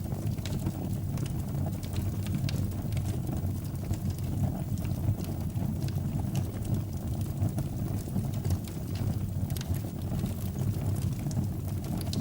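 Fire burning in a fireplace: a steady low rumble with irregular crackles and pops.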